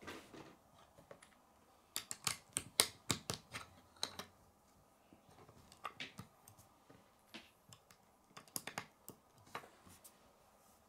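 Plastic Lego bricks clicking as small pieces are pressed together and handled on a wooden tabletop: scattered sharp clicks, busiest about two to three and a half seconds in and again around nine seconds in.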